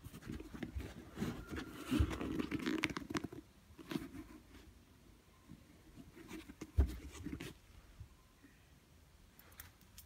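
Hands handling a sneaker: rustling and scuffing of the laces, tongue and upper, with a soft thump about two seconds in and another near seven seconds, quieter toward the end.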